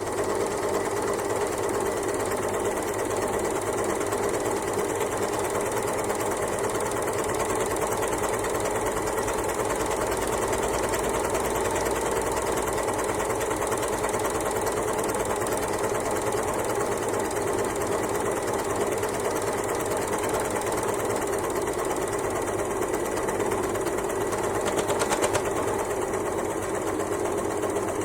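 Overlocker (serger) sewing machine running steadily at speed, a fast continuous rattling stitch with a brief louder moment near the end.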